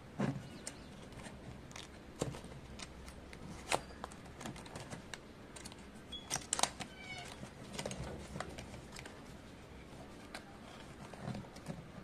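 Handling of a small cardboard retail box: fingers working the tuck flap and a plastic tab open, giving scattered light taps, clicks and rustles of cardboard and plastic, with a brief squeak a little past halfway.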